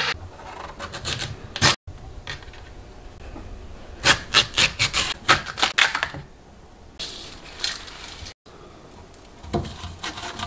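Kitchen knife cutting Korean radish on a plastic cutting board: a quick run of sharp cutting strokes, about four or five a second, in the middle, with rubbing and handling of the radish pieces around it.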